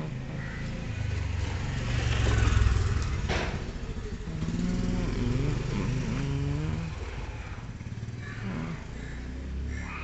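A motor vehicle's engine running, swelling to its loudest about two and a half seconds in and then easing off, with a single sharp knock just after three seconds.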